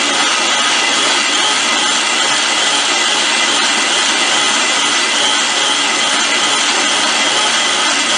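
Electric grain mill grinding wheat, a loud steady grinding whir that does not let up: cracked wheat going through a second time to be ground into fine whole wheat flour.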